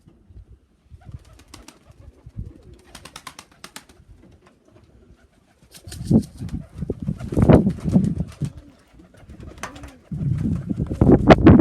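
Domestic pigeons cooing, loudest about halfway through and again near the end, with a few light clicks and taps in between.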